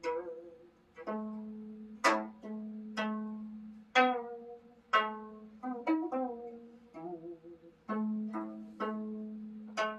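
Gayageum, the Korean plucked zither, played slowly: single plucked notes about one a second, each ringing and fading. Near the middle comes a quick run of notes, some bent in pitch.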